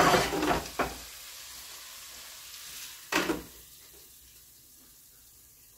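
Stainless steel rondeau pot clattering and scraping as its sizzling contents are tipped out, with several knocks in the first second and one loud clank about three seconds in. A faint sizzle fades away underneath.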